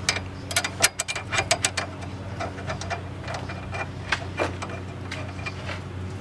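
Hand tools clicking and clinking against metal suspension parts, a quick flurry in the first couple of seconds and then scattered clicks, over a steady low hum.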